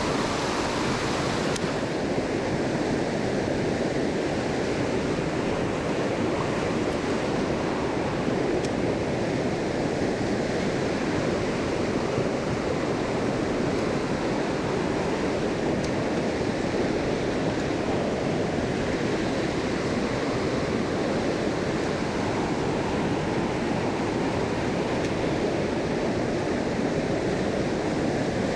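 Mountain creek water rushing and splashing steadily over rocks, an even, unbroken roar of running water.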